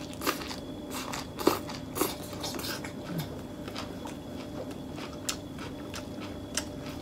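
Close-up biting and chewing of a fresh lettuce wrap around a beef-in-betel-leaf (bò lá lốt) roll: a string of irregular crisp crunches, the sharpest about one and a half and two seconds in.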